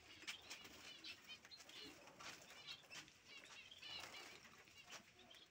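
Caged finches chirping faintly, with brief fluttering of wings in the cages.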